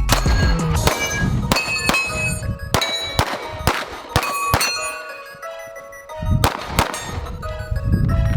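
Pistol shots hitting steel targets, each hit giving a metallic clang that rings on. About a dozen hits come in quick strings, with a short pause a little past the middle.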